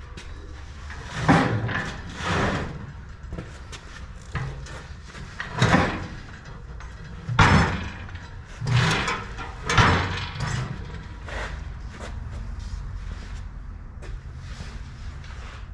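Irregular heavy knocks and clanks of steel being handled or struck, about half a dozen loud hits with quieter ones between, over a steady low hum.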